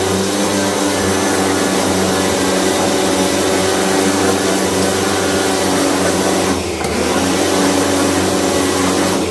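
A steady, loud electric motor-driven machine running, with a brief dip about two-thirds through.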